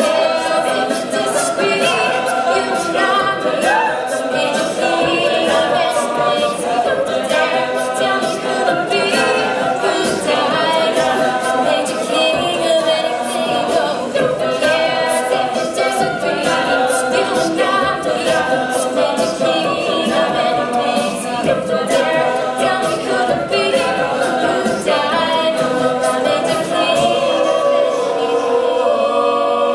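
Mixed-voice a cappella group singing a pop song, with a female soloist leading over the group's sung backing harmonies.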